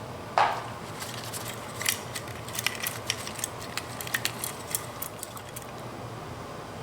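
Hands handling a ceiling fan's pull-chain switch assembly: one sharp knock about half a second in, then a scattered run of small clicks.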